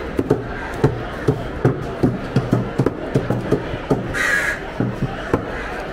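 Broad cleaver-like knives chopping tuna on wooden log chopping blocks: sharp, irregular knocks, often several a second, from more than one cutter. A crow caws once about four seconds in.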